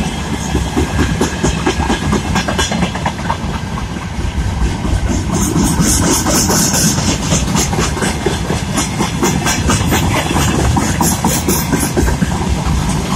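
Freight wagons of a mixed freight train, open gondolas and covered hoppers, rolling past at speed: a steady rumble of steel wheels on rail with rapid, irregular clicks and clatter. A short hissing stretch comes about halfway through.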